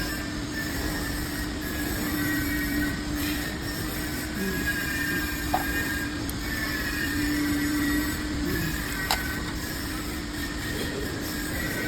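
Aluminum profile sawing, drilling and milling machine running with a steady hum and a whine, with two sharp clicks partway through.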